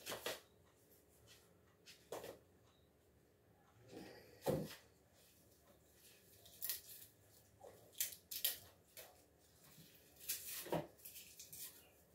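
Faint, scattered handling noises at a table: rustling of dry garlic skins and light knocks as they are packed into a glass jar, with a soft thump about four and a half seconds in.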